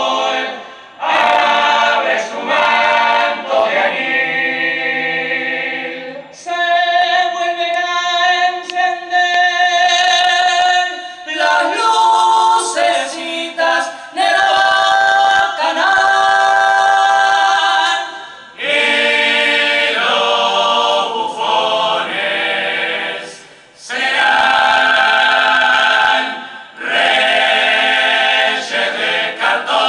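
Uruguayan murga chorus of men and women singing a clarinada a cappella in close harmony, held chords in phrases of a few seconds, each broken by a short pause for breath.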